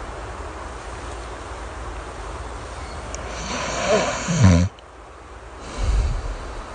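Soft snoring over steady rain. About halfway through, one drawn-out snoring breath in swells and then cuts off sharply; near the end comes a shorter, lower snoring breath out.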